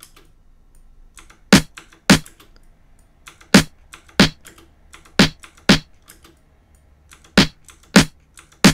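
Short percussive drum samples played back from a music editor: about nine sharp hits, mostly in pairs about half a second apart, with faint small clicks in between.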